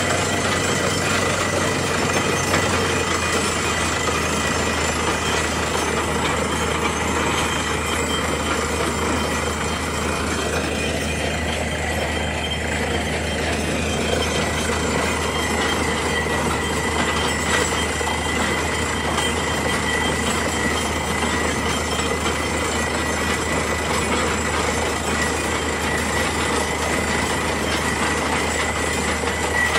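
Truck-mounted borewell drilling rig running steadily as it drills: a constant heavy machine drone with a thin steady whine above it, as muddy water and cuttings are blown out of the hole around the drill pipe.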